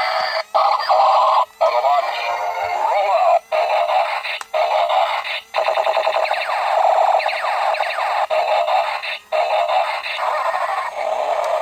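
Electronic-sounding singing with music, thin and lacking bass. It is cut by several brief silences.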